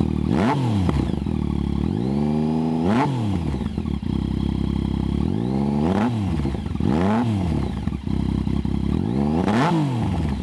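Yamaha FZ-09's 847 cc inline-three engine, breathing through a Toce Double Down aftermarket exhaust, idling and revved by hand five times: quick throttle blips that rise and fall back to idle, with one longer rev about three seconds in.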